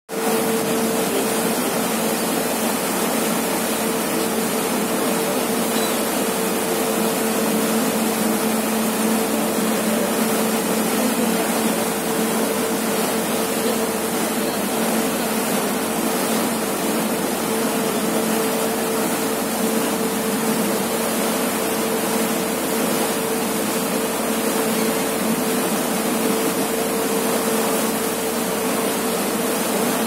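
A ferry running under way: the steady rush of its churning propeller wake over a constant engine hum.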